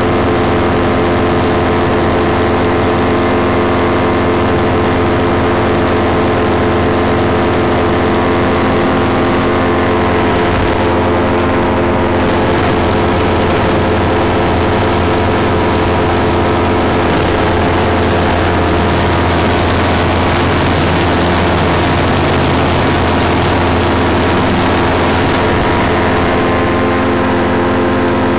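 Paramotor engine and propeller running steadily in flight, heard loud and close from the pilot's own backpack unit.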